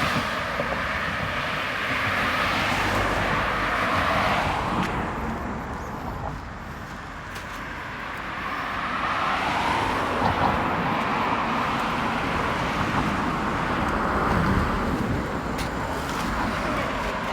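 Two road vehicles pass one after another, each swelling and fading over several seconds. Under them runs the steady rush of a low, wide waterfall spilling over a rock slab.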